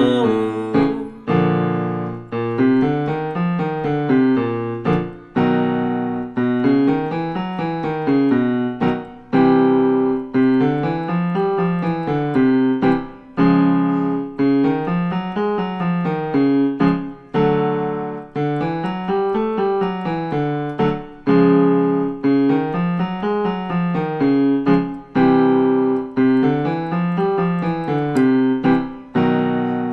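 Piano playing a vocal warm-up exercise: short up-and-down scale runs in a low register, each set off by a held chord, repeated over and over.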